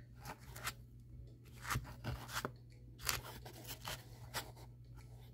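Faint, irregular crinkling and light clicks of packaging and small gel polish bottles being handled and sorted through by hand.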